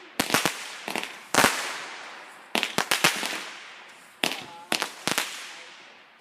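Consumer fireworks going off: a series of sharp bangs in quick clusters of two to four, each trailing off in a fading echo. The loudest bang comes about a second and a half in.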